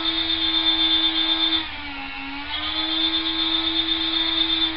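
Electric bacon slicer's motor whining steadily while it slices a smoked topside pastrami. About two seconds in, the pitch and level dip for under a second and then come back up.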